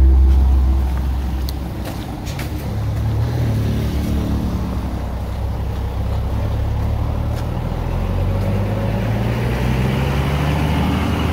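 A motor vehicle's engine running, its pitch slowly rising, with road noise growing toward the end. The tail of background music fades out in the first second.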